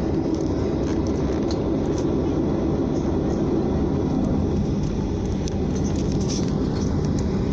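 Steady jet engine and airflow noise heard inside a Blue Air airliner's cabin, a deep even rumble while the aircraft is on the ground near the runway.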